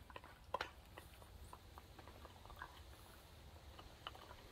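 Faint irregular clicks and scrapes of two dogs gnawing on chew toys, teeth working against the toy, with one sharper click about half a second in.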